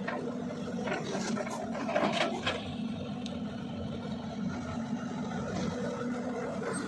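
Diesel engine of a CAT 320DL long-arm excavator running steadily under work, with a few knocks and a scrape about one to two and a half seconds in.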